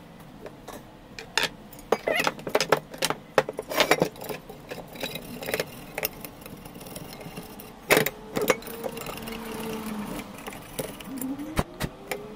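Metal parts of a Ridgid table saw fence head clinking, clicking and rattling as they are handled and worked on by hand, in irregular runs of sharp knocks. A short rising squeak comes near the end.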